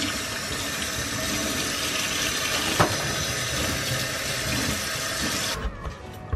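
Kitchen tap running into a stainless steel sink, the stream splashing over halved snake gourd as it is rinsed, with a single knock about three seconds in. The water shuts off suddenly a little before the end.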